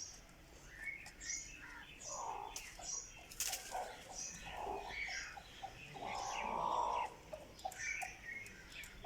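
Several birds calling: quick high chirps throughout, with lower, longer calls about two, four and a half and six seconds in, the last and loudest lasting nearly a second.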